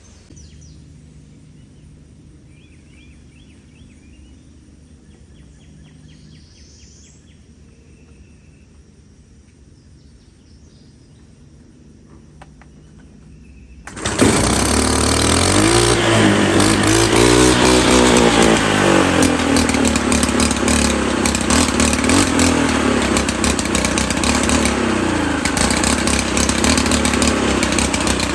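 A Stihl FS 111 R trimmer fitted with a brush-cutter blade starts suddenly about halfway in and runs loud, revving up and down a couple of seconds after it catches and again later. Before it starts there is only faint outdoor background with a few chirps.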